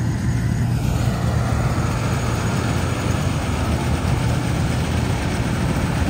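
Standard combine harvester running steadily while harvesting rice, its engine and machinery giving a constant deep hum.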